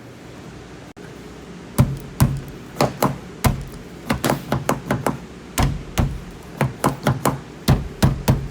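Repeated sharp knocks on a car's rear door at the lock actuator, a few a second at an irregular pace, starting about two seconds in. It is an attempt to jar a failed, stuck door lock actuator so the latch releases and the door opens.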